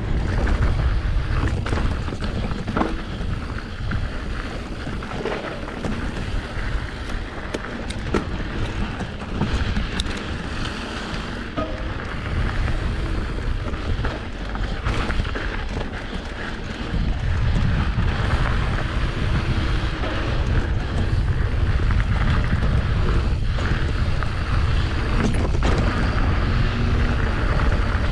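Wind buffeting an action camera's microphone on a moving mountain bike, with the tyres rolling over dirt and gravel and scattered clicks and rattles from the bike. The low rumble gets stronger about two-thirds of the way through.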